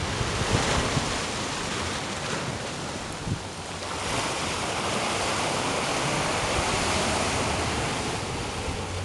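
Rushing, churning sea water with wind buffeting the microphone, a steady noisy wash that swells slightly about halfway through.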